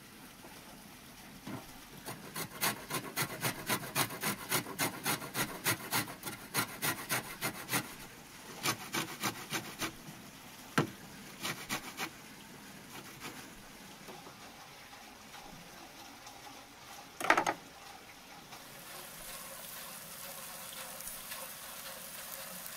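A lemon being grated on a stainless-steel box grater: a run of even rasping strokes, about three a second, then a few shorter runs, with a sharp click partway and a louder knock later. Near the end a faint steady sizzle of onions frying in a cast-iron pan.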